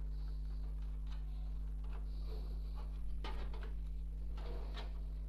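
Faint clicks and rustles of a DDR3 RAM stick being handled and pressed into a motherboard memory slot, the slot's latches snapping shut, over a steady low hum.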